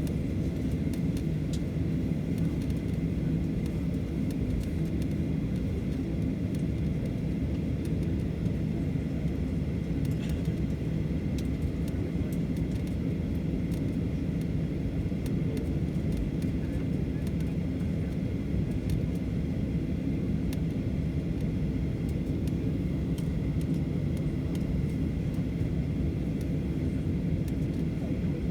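Cabin noise inside a Boeing 737: a steady rumble of engines and airflow, with faint steady high tones over it.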